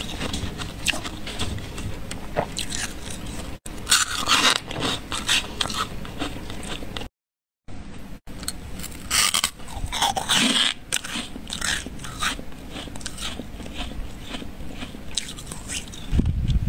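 Thick, snowy freezer frost being pressed and crunched, a continuous run of crisp, squeaky crunches and scrapes. There is a brief total break about seven seconds in and a low thud near the end.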